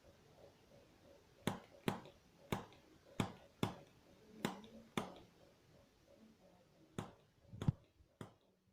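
Activator adjusting instrument firing, a spring-loaded chiropractic tool: about ten sharp clicks at irregular intervals, with a pause of about two seconds midway.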